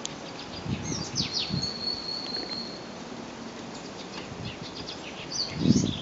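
Thin beading wire being pulled through glass seed beads, giving high scratchy squeaks and ticks. Soft knocks of handling come with them, the loudest near the end.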